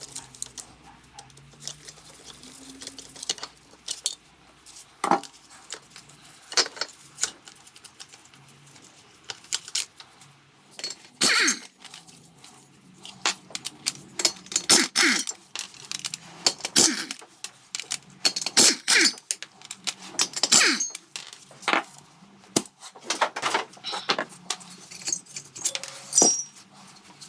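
Metal hand tools and engine parts clinking and clicking irregularly as a scooter engine is taken apart, some strikes ringing briefly.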